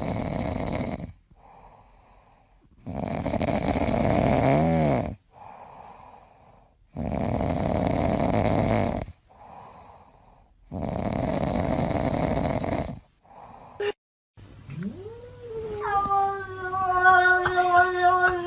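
A cat making four long, noisy breaths or snores of about two seconds each at an even pace. Then, a few seconds before the end, it gives one long drawn-out yowl that rises in pitch and is held.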